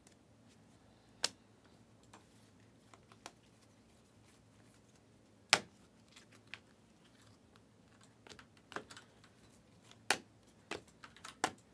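Sharp clicks and snaps of stiff glossy Panini Prizm trading cards being slid and flicked through a stack by hand, a few seconds apart, the loudest about halfway through and a quicker cluster near the end.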